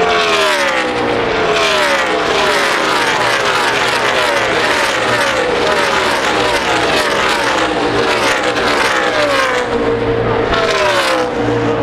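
A field of NASCAR Cup stock cars racing past at speed, their V8 engines overlapping without a break, each car's note dropping in pitch as it goes by.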